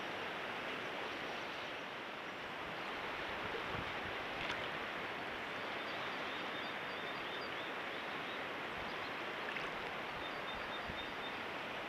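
Shallow river water rushing steadily over a riffle around a wading angler's legs.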